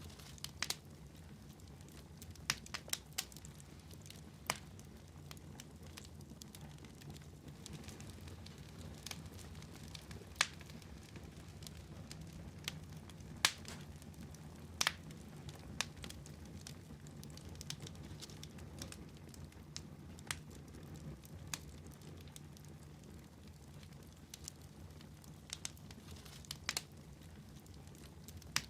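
Wood fire crackling in a fireplace: sharp pops and snaps at irregular intervals over a low, steady hum.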